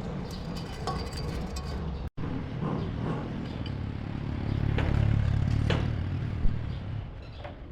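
Low mechanical rumble of running machinery that swells about halfway through and eases near the end, with scattered light clicks and one sharp tick.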